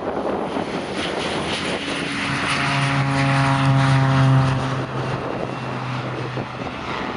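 Cessna 208B Grand Caravan's PT6A turboprop engine and propeller at takeoff power as the aircraft passes and lifts off. A steady low propeller hum with a higher whine above it swells to its loudest about four seconds in, then fades as it climbs away.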